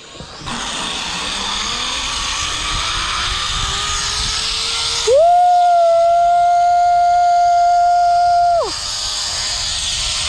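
Zip-line trolley running down the steel cable: a rushing whir whose pitch rises slowly as the rider gathers speed. About five seconds in, a loud, steady held tone cuts in over it. It lasts about three and a half seconds, then stops abruptly.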